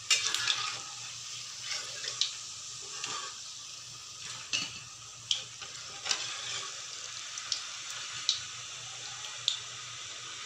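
Spinach and gram-flour batter pakoras deep-frying in hot oil: a steady sizzling hiss with scattered sharp crackles and pops.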